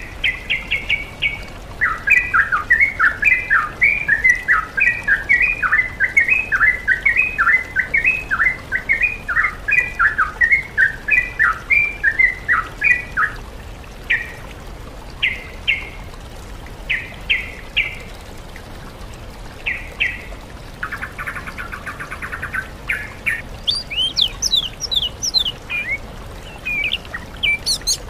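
Songbird recording mixing yellow-vented bulbul song with oriental magpie-robin and greater green leafbird, as played to train caged birds. A long run of quick repeated chattering notes, then spaced short phrases, a brief buzzy rattle, and higher whistled notes near the end.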